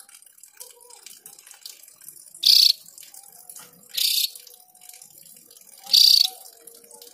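Caged Javan grey-throated white-eye (Opior Jawa) giving three short, harsh calls, about a second and a half to two seconds apart.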